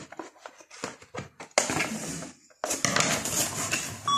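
Plastic toy doll crib being pulled out of its cardboard box: a run of light knocks and clicks, then two longer stretches of cardboard scraping and rustling.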